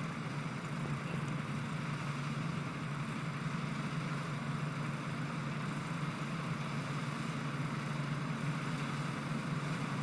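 Combine harvester's engine running steadily as it cuts wheat, an even low hum with a haze of machine noise over it.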